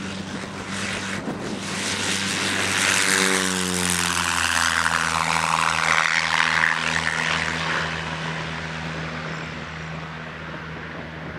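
Van's RV-8 light aircraft's piston engine and propeller at takeoff power, growing louder as it rolls down the runway and lifts off. The pitch drops as it passes, three to four seconds in. It then drones steadily and fades as the plane climbs away.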